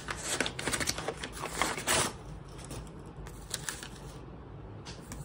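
Brown paper mailer rustling and crinkling as a paperback manga volume is slid out of it, busiest in the first two seconds, then a few brief rustles.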